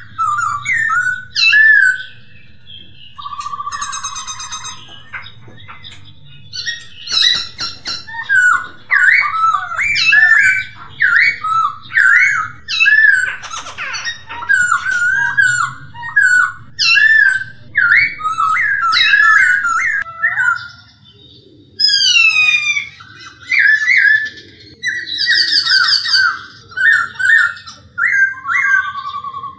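Poksay hongkong, a laughingthrush, singing a loud, varied song of rapid whistled phrases and trills, with a brief lull about two-thirds of the way through. A steady low hum lies underneath.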